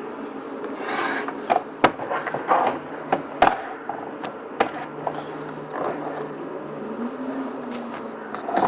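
Handling noise from a body-worn wireless lavalier microphone: rustling and scraping, with several sharp clicks and knocks in the first five seconds, over a steady low electrical hum.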